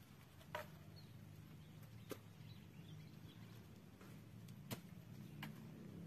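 Four short, sharp knocks at irregular intervals from a climber's rope loop and boots against a palm trunk, over a faint low hum.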